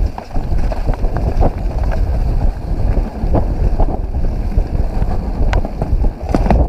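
Mountain bike descending fast over a leaf-covered trail: wind buffets the microphone in a heavy rumble, with tyres rolling over dry leaves and dirt and the bike rattling, plus scattered sharp knocks over bumps.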